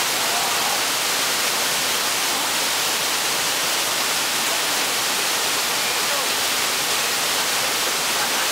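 Shiraito Falls pouring onto rock: a steady, dense rush of falling water that does not change.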